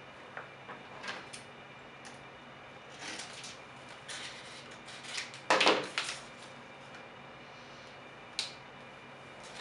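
Intermittent rustling and crackling of a vinyl decal sheet and its paper backing being handled and fitted against a model helicopter's tail boom, loudest about five and a half seconds in.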